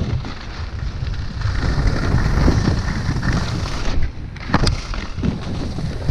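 Wind buffeting an action camera's microphone during a ski run, with skis sliding over snow; a couple of sharp knocks about four and a half seconds in.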